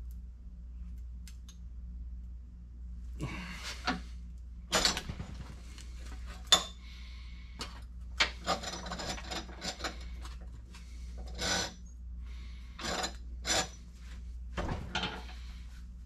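Thin sheet steel being worked in a bench vise: irregular scraping and rattling of the flexing panel and sharp metallic knocks from the vise and its handle as the piece is unclamped, repositioned and clamped again. The loudest clack comes about six and a half seconds in, over a steady low hum.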